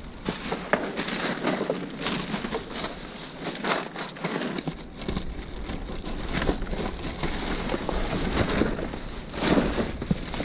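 Plastic trash bags and packaging rustling and crinkling in a dense, irregular crackle as items are handled and pulled out, with a low steady rumble underneath from about halfway through.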